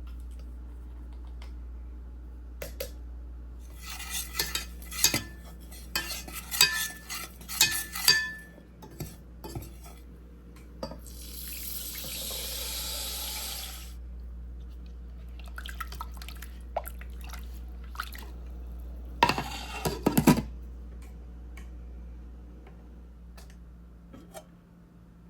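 Kitchen dishes and utensils clattering and knocking, in two busy spells with a loud burst near the end. In between comes a rush of running water lasting about two seconds, and a low steady hum runs underneath.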